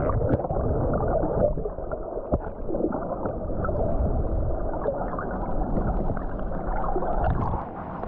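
Muffled rumbling and gurgling of seawater heard from a camera held underwater, with a few faint clicks and knocks.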